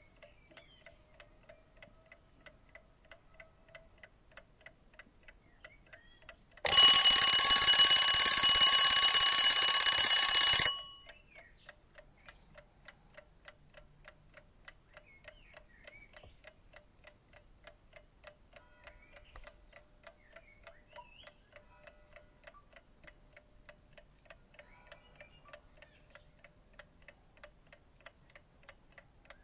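An old mechanical clock ticking steadily. About seven seconds in, its alarm bell rings loudly for about four seconds and stops abruptly, and the ticking carries on.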